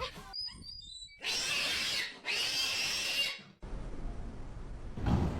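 A cat hissing twice, each hiss lasting about a second.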